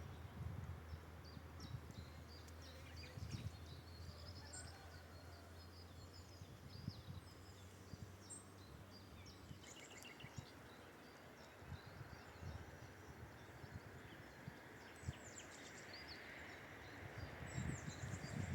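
Faint songbirds chirping and trilling, several calls overlapping. Low gusts of breeze rumble on the microphone.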